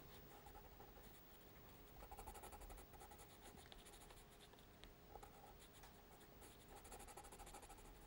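Faint scratching of a water-soluble pencil shading on textured watercolour paper.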